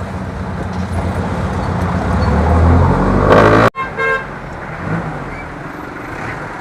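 A road vehicle's engine running and growing louder, with a horn sounding loudly just before the sound cuts off abruptly about halfway through. After the cut there is quieter street traffic with a short horn toot.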